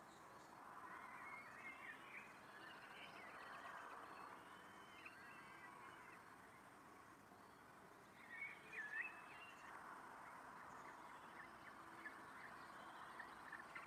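Peregrine falcon chicks begging at the nest while being fed: faint, thin, high chirping calls that come and go over a steady background hiss, with one louder, bending call about nine seconds in.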